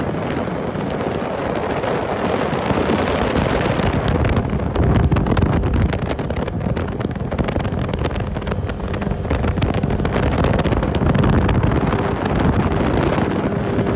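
Twin Tohatsu 30 hp outboard motors running steadily at speed on an aluminium boat, with wind buffeting the microphone.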